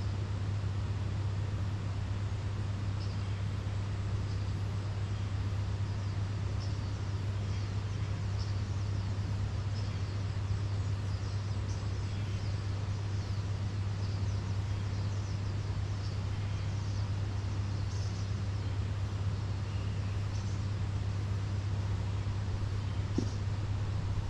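A steady low hum with a constant hiss, holding level throughout, with faint short high chirps recurring about once a second.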